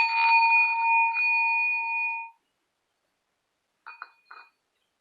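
Singing bowl singing as a mallet is run around its rim: a steady ringing tone with higher overtones and a faint scraping of the mallet. The tone cuts off abruptly a little over two seconds in, and two faint knocks follow near the end.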